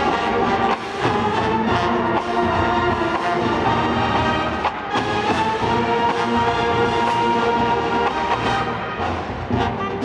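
College marching band playing a brass-led Motown medley. The brass holds a long chord about halfway through.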